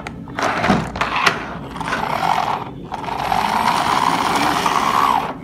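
Large plastic toy truck being handled: a few clicks and knocks, then from about halfway a steady whirring of its wheels and gears as it is rolled along.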